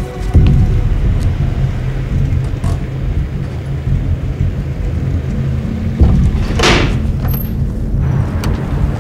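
A car engine starts with a low rumble about a third of a second in, then runs steadily. There is another low jolt about six seconds in, followed by a brief whoosh.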